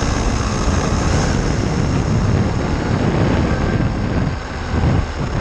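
RC car being driven, its motor running with a steady high whine over a continuous rushing noise. The sound dips briefly near the end.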